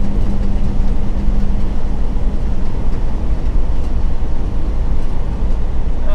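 Semi truck heard from inside the cab at highway speed: a steady engine drone and road rumble. A steady hum in it drops away about two seconds in.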